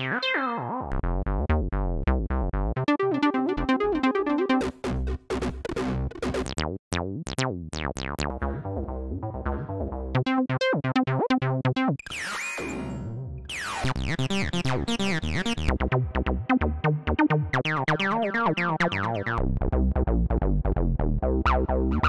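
Image-Line Transistor Bass, a 303-style monophonic bass synth, auditioning one factory preset after another. Each plays a short sequenced bass pattern of quick repeated notes for about two seconds before the next sound takes over. The timbre changes from one preset to the next, with a hissy, noisy sweep just past the middle.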